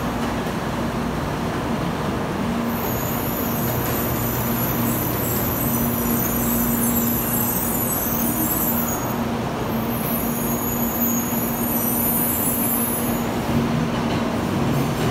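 Tokaido Shinkansen 923-series Doctor Yellow train running alongside the platform: a steady rumble of wheels and running gear with a steady low hum. A high-pitched hiss comes and goes over it, from about three seconds in to about nine, and again from about ten to thirteen seconds in.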